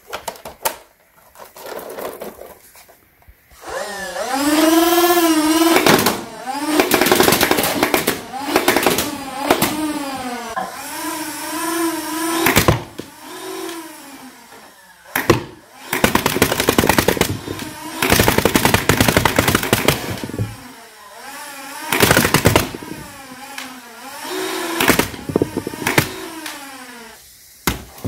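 NERF Rival Perses MXIX-5000 motorized blaster firing foam balls in full-auto bursts, about eight shots a second. In each burst its motor whines up and then down in pitch over a rapid rattle of shots, with short pauses between bursts.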